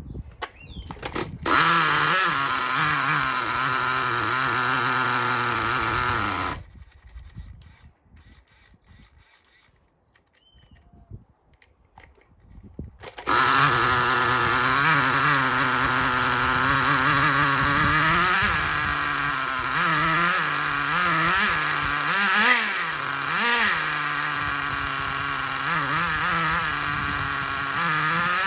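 Nitro RC truck's small two-stroke glow engine starting and running for about five seconds, then cutting out. After several seconds of near quiet with a few clicks it starts again and idles, with repeated throttle blips rising and falling in pitch in the second half.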